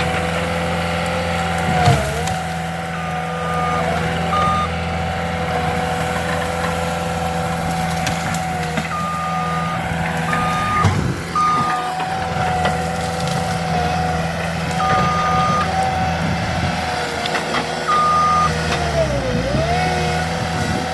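Skid steer engine running steadily under work, its pitch sagging briefly three times as it takes load and recovers, with the machine's reversing alarm beeping in several stretches as it backs up. Sharp knocks about two seconds in and again around eleven seconds.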